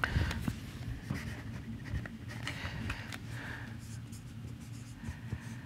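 Marker pen writing on a whiteboard: a series of short scratchy strokes as words are written.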